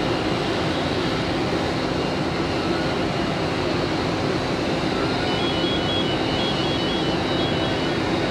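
Fire apparatus engines and pumps running in a steady drone with a constant low hum. A faint, high, broken beeping comes in over it in the second half.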